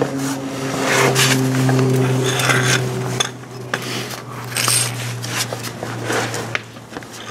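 Metal tools clinking and scraping as an oil filter wrench is handled to loosen a spin-on oil filter, over a low steady hum.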